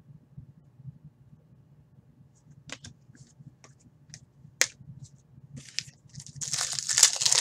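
Hockey trading cards handled by hand: a few light clicks and taps of card stock starting a couple of seconds in, one sharp click around the middle, then a louder burst of rustling and shuffling near the end.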